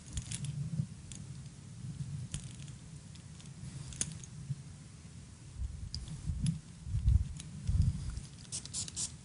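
Scattered light clicks and rustles of handling, with a few low dull thumps in the second half and a quick run of clicks near the end as a small bottle is picked up.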